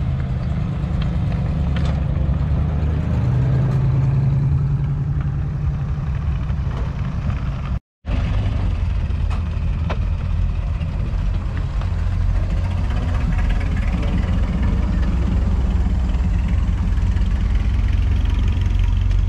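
Classic car engines running at low speed as the cars drive slowly past, first a Chevrolet Corvette's V8 with a steady low note, then, after a sudden break about eight seconds in, a vintage open tourer's engine with a deeper steady rumble.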